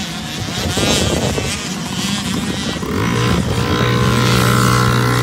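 Small two-stroke 65cc motocross bikes revving up and down as they race past. From about three seconds in, a steady engine drone holds at one pitch.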